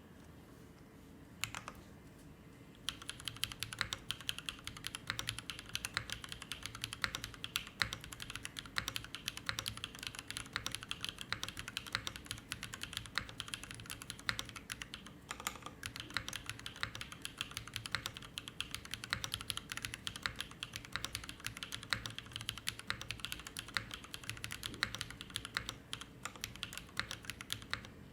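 Typing on a custom JIU tenkeyless mechanical keyboard with a full polypropylene plate, lubed Ca Phe Sua Da linear switches and GMK keycaps. After a single keypress it settles, about three seconds in, into a steady stream of quick keystrokes.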